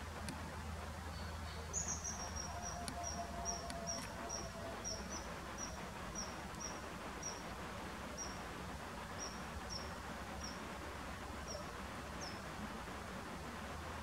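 Common kingfisher calling: a series of short, high, sharp notes, coming quickly at first and then thinning out to scattered single notes, over a steady background hiss.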